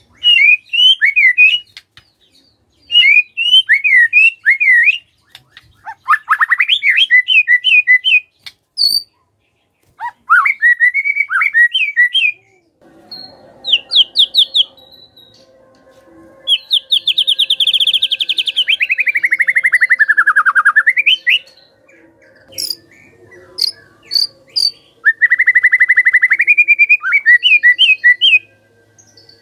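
White-rumped shama singing in loud, separate phrases: quick whistled runs, a long buzzy rattle in the middle that sweeps down and back up, sharp high notes, and a rapid trill near the end, with short pauses between phrases.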